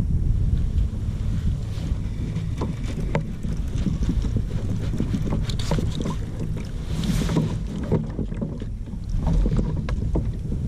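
Wind buffeting the microphone on a kayak, a steady low rumble, with scattered small knocks and clicks of gear on the hull.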